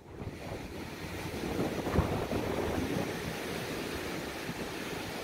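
Ocean surf washing onto a sandy beach, with wind buffeting the microphone; a steady rushing noise with one brief louder peak about two seconds in.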